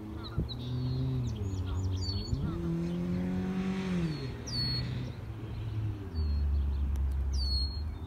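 Songbirds chirping in short, high, downward-sweeping calls over the low hum of a passing motor vehicle's engine, which rises and falls in pitch twice.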